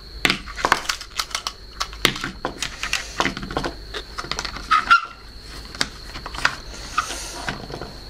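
Irregular light clicks and knocks of hard plastic as a small robot vacuum cleaner's dust bin and cover are handled on a wooden table.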